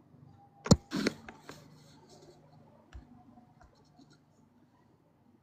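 A few sharp clicks and light scratching, like handling noise. The loudest click comes a little under a second in, a few more follow around the one-second mark, and a softer knock comes about three seconds in.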